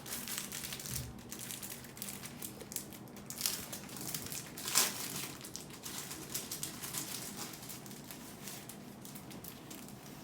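Crinkling and rustling of sticker sheets and small plastic clock numerals being handled, as stickers are peeled and pressed on, with one louder crackle about halfway through.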